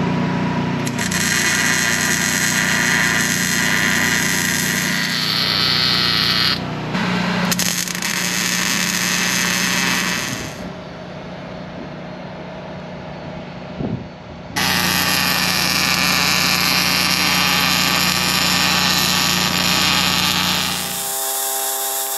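MIG welding a new spindle onto a trailer axle tube: long stretches of loud, crackling welding hiss with a short pause in the middle, over a steady low engine hum. A brief humming tone comes in near the end.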